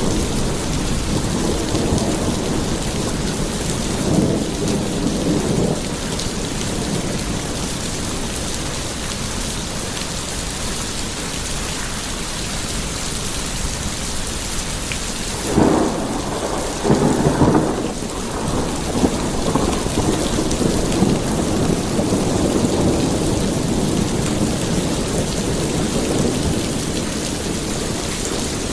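Steady heavy rain with rolling thunder; the thunder swells twice, most loudly a little past the middle.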